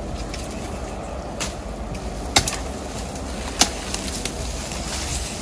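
A knife blade striking thin sapling stems while cutting a rod stick: three sharp cracks, the last two the loudest, over a steady low rumble.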